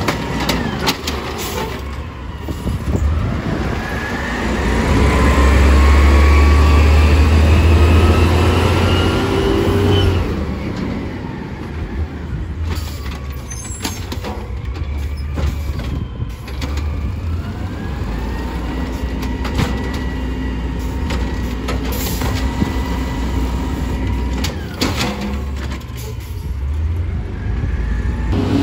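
Automated side-loader garbage truck working the curb: its engine revs up heavily with a rising whine as the truck pulls away, then runs more steadily with a held whine while it works again. Knocks and clatters of the cart and arm come near the start and again near the end.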